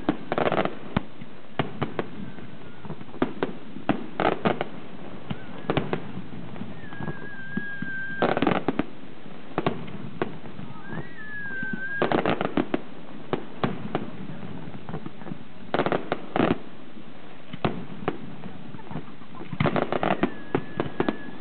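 Aerial fireworks display: shells bursting in clusters of sharp bangs and crackles every few seconds. A few thin high whistles of about a second sound between the salvos.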